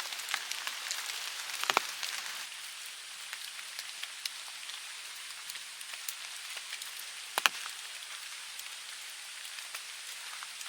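Steady patter of raindrops on wet forest foliage, a fine hiss full of small ticks, with two louder single drops about two seconds in and again about seven seconds in.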